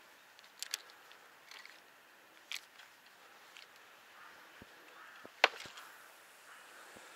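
A few scattered light clicks and taps over a faint hiss, the loudest a single sharp click about five and a half seconds in.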